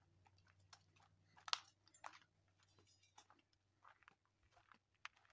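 Faint, irregular crunching footsteps on gravelly grass, the loudest crunch about one and a half seconds in.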